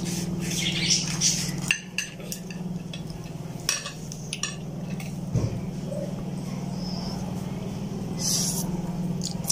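Forks and utensils clinking against a plate and a metal cooking pot during a meal: a few short sharp clinks, over a steady low hum. A brief slurp of noodles near the end.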